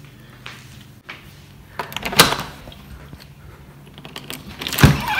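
A few sharp knocks and clicks against quiet room tone, the loudest about two seconds in and again near the end: a house door being unlatched and opened.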